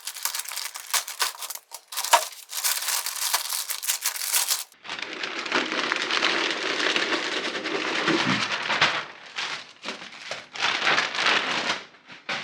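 Plastic packaging bag crinkling and rustling as it is opened and handled, in three spells with short pauses between them.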